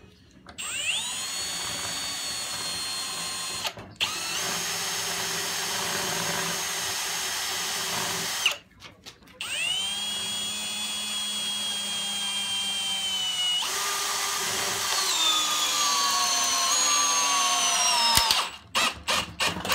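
Milwaukee 2704 M18 Fuel brushless hammer drill in drill mode driving a long lag screw through a socket into wood with no pilot hole, running in three spells with short pauses. In the last spell the motor's whine sinks steadily in pitch as the lag loads it more and more, then stops with a sharp click once the head seats.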